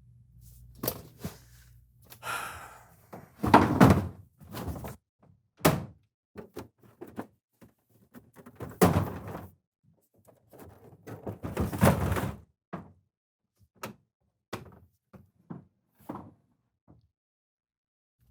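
An irregular run of thuds, knocks and bangs, with heavier clusters about 4, 9 and 12 seconds in and lighter taps toward the end.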